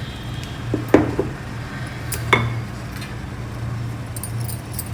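Kitchen utensils clinking against a bowl and plate as dhokla batter is poured and scraped onto a greased plate: a few sharp clinks about one and two seconds in, over a steady low hum.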